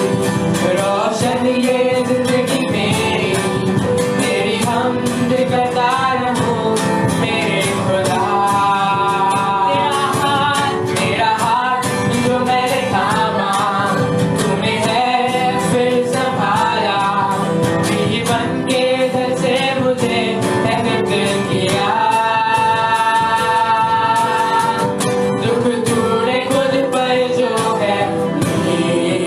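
Live worship song: a lead singer holding and gliding between notes over a band with a steady drum beat.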